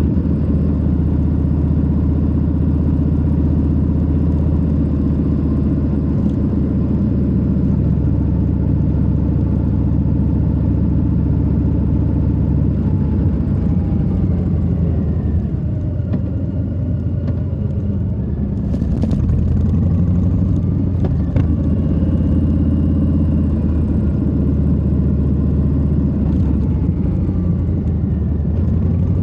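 Harley-Davidson Low Rider S's Milwaukee-Eight 117 V-twin running under way, heard from the rider's seat; it eases off about halfway through and picks up again a few seconds later.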